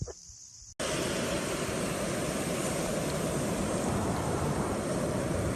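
Loud, steady rushing noise with a faint hum, starting abruptly under a second in.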